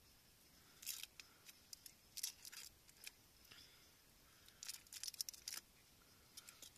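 Faint crinkling and tearing of a small individually wrapped cheese's wrapper as it is peeled open by hand. The crackles come in short clusters: about a second in, around two seconds, and a denser run between about four and a half and five and a half seconds.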